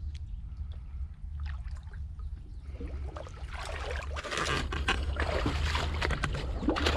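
Shallow muddy water splashing and sloshing, with scattered clicks. It gets louder from about three seconds in, over a steady low rumble.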